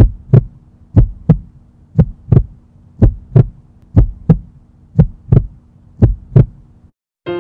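Heartbeat sound effect: pairs of low lub-dub thumps about once a second over a faint steady hum. It stops near the end, and piano music comes in.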